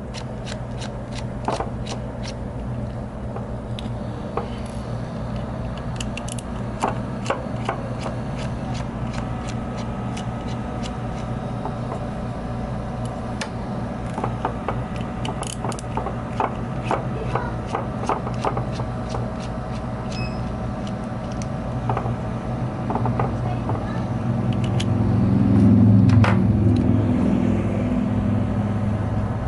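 Small clicks and scrapes of a precision screwdriver turning tiny screws in the plastic gimbal yaw-arm cover of a DJI Phantom 4 drone, followed by fingers handling and prying the plastic cover. A steady low hum runs underneath, and a louder low rumble of handling comes a little before the end.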